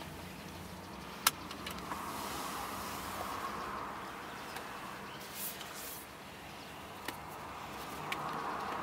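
Steady background noise inside a car cabin, with a few sharp clicks and soft rustles from cardboard phone boxes handled in gloved hands. The loudest click comes about a second in.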